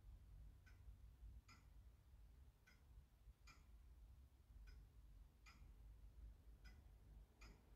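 Near silence with a clock's faint, slow tick-tock, about one tick a second. The ticks come unevenly, alternately a little closer together and a little farther apart, as from a clock slightly out of beat.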